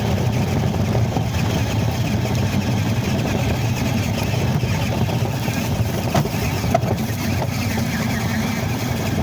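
Steady low wind rumble on the microphone, mixed with the running noise of a large Ford Raptor RC car driving, with a couple of faint ticks about six seconds in.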